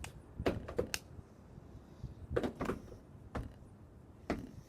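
Several separate knocks and clicks of objects being handled and set down on a table, with a cluster in the first second and single knocks later on.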